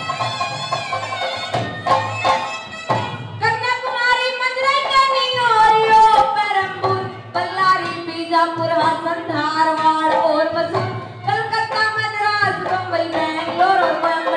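A woman sings a Haryanvi ragni folk song over a microphone and PA, backed by a folk band with drums. The first three seconds or so are the instrumental accompaniment with drum strokes. Then she comes in singing, with long held, bending notes, and sings to the end.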